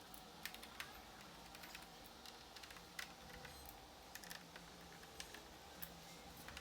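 Near silence with a few faint, scattered clicks and taps from plastic grille parts being handled.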